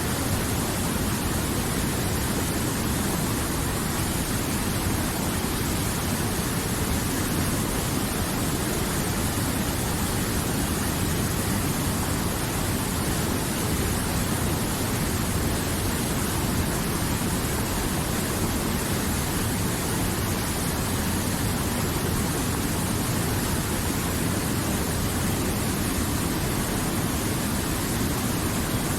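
River water flowing, a steady unbroken rush.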